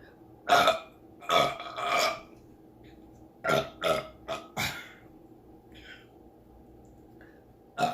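A woman burping loudly over and over: three burps in the first two seconds, then four shorter ones in quick succession, and one more near the end.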